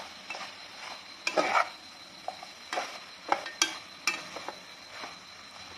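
Long metal spoon stirring duck and greens in an aluminium pot, with a run of clinks and scrapes of metal on metal over a steady frying sizzle. The loudest scrape comes about a second and a half in.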